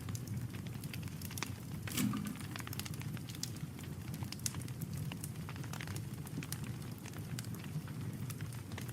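Wood campfire crackling, with irregular sharp pops and snaps over a steady low rumble; the biggest pop comes about two seconds in.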